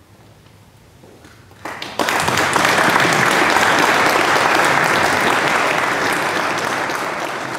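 Audience applause after a choir's song. After a short hush, a few claps come about a second and a half in, then full, steady applause from about two seconds, easing slightly toward the end.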